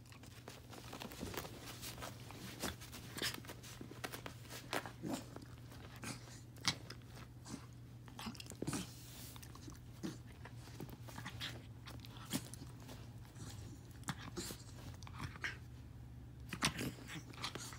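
Small dog squirming and rolling on its back on carpet against a fabric quilt: irregular scuffs, crunchy rustles and clicks, over a steady low hum.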